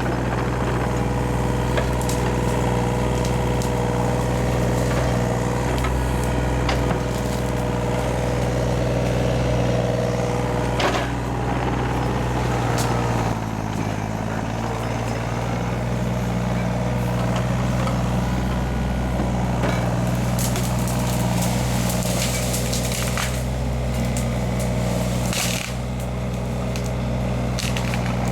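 Heavy earthmoving machine's engine running steadily under load while it clears trees, with several sharp cracks of wood breaking. The engine note dips about halfway through.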